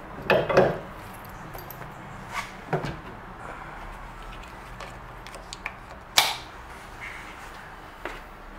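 Metal clunks and clicks of a detachable Westfalia vertical-bayonet tow ball being unlocked and pulled out of its receiver under the car: a cluster of knocks about half a second in, two more about two and a half seconds in, and one sharp click about six seconds in.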